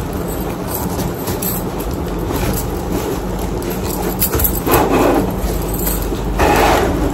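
Cardboard box being handled and pulled open: rustling and scraping of the flaps and packing, with two louder rustles about five and six and a half seconds in, over a steady background hum.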